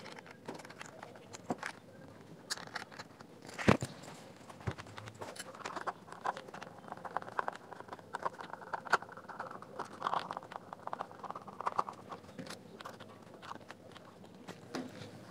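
Hands and a small screwdriver working on the plastic casing of a JBL Xtreme Bluetooth speaker: scattered clicks and scraping, with one sharper knock about four seconds in and a denser run of scraping in the middle.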